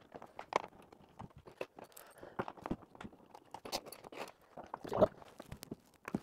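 Scattered light clicks, taps and knocks of bolts and washers being threaded by hand into a molded plastic dog kennel shell, along with hands handling the shell and a few footsteps. One louder knock comes about five seconds in.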